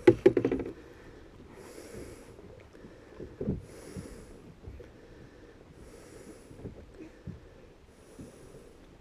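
A person breathing slowly and evenly, about one breath every two seconds, after a brief clatter of knocks at the start.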